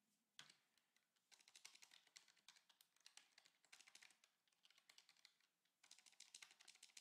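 Faint typing on a computer keyboard: quick runs of keystroke clicks, with a short pause about five seconds in before more keys are pressed.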